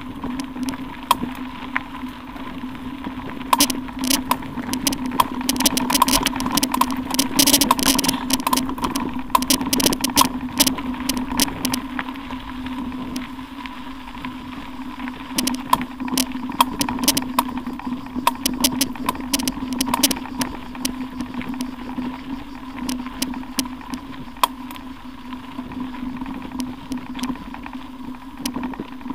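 Mountain bike rolling over a loose gravel road, picked up by an action camera riding along: a steady hum of road rumble with constant rattling and crackling clicks of stones and bike parts, the clicks thickest a few seconds in.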